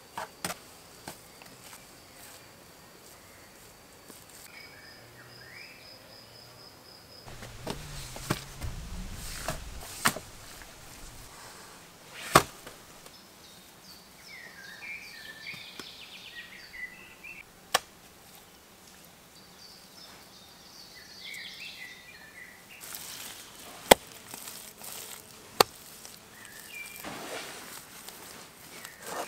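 A handful of sharp single knocks, spaced several seconds apart, the loudest about four fifths of the way through, with short high chirps in between.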